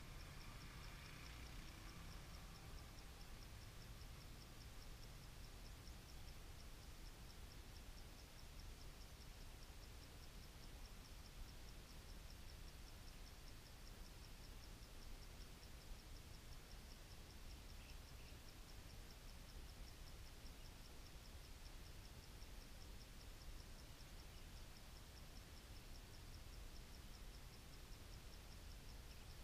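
Near silence, with insects chirring faintly in a steady, fast high pulse over a low wind rumble. A distant motorbike engine fades away in the first two seconds.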